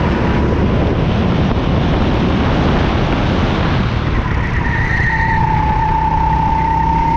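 Go-kart engine running at high revs, a steady whine under a loud rush of wind over the onboard camera's microphone. The engine's whine gets louder about five seconds in.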